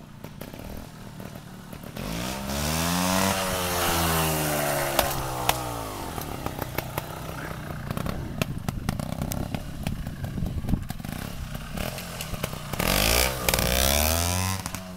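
2002 Sherco 290cc trials bike's engine revved up and let fall twice, about two seconds in and again near the end, as the bike is lifted into wheelies. In between it runs at lower revs with sharp ticks.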